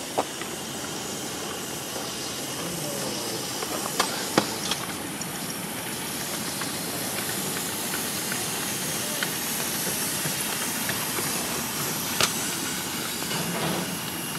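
Ridable live-steam scale model of a Pennsylvania Railroad locomotive hissing steam steadily as it rolls slowly through the yard. A few sharp clicks break in: one right at the start, a pair about four seconds in, and one near the end.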